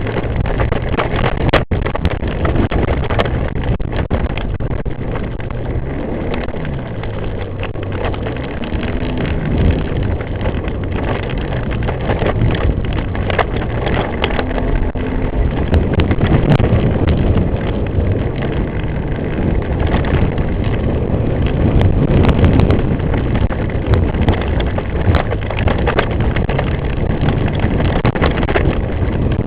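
ATV engine running steadily under way, its pitch falling and rising several times as the throttle is eased and opened, with the noise of the machine travelling over the trail.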